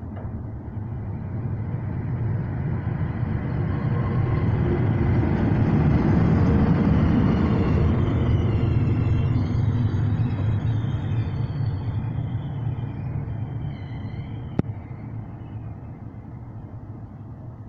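Two coupled Italian electric locomotives, an FS E.652 and an E.405, passing through: the rumble of their wheels on the rails swells to a peak about six seconds in, then fades as they move away. A high whine wavers in pitch as they recede, and one sharp click sounds near the end.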